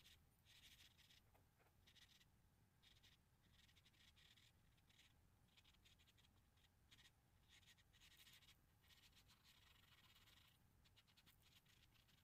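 Charcoal stick scratching faintly across paper in quick, irregular strokes, some short and some drawn out, with brief pauses between them.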